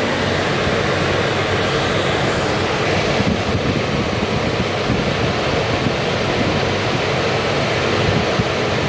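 Carrier Xarios 500 truck refrigeration unit running with its compressor and fan motors working, heard as a steady rushing noise with no change.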